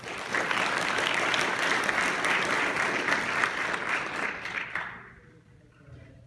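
Audience applause: many hands clapping at once, starting abruptly and lasting about five seconds before tapering off.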